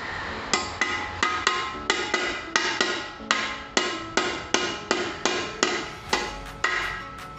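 A hammer striking metal again and again at a little under three blows a second, each blow ringing briefly; the blows stop near the end.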